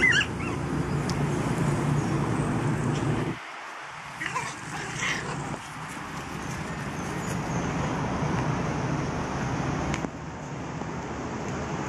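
Toy poodle puppies giving short high-pitched yips, once at the very start and a few more about four to five seconds in, over a steady low rumble that drops away briefly just before the second set of yips.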